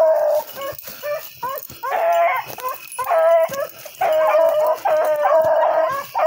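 A pack of rabbit hounds baying together on a rabbit's trail, several dogs' long held bawls overlapping with shorter yips and barks. The steady chorus is the sign that the pack is on the scent and running the track.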